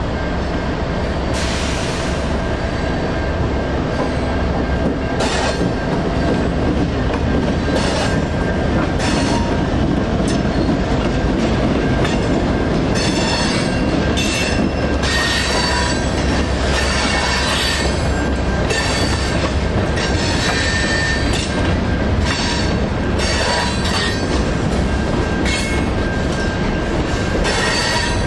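Union Pacific freight train passing a grade crossing: the two EMD SD59MX diesel locomotives' engines drone as they go by, then a long string of freight cars rolls past with steel wheels rumbling, clicking and squealing on the rails.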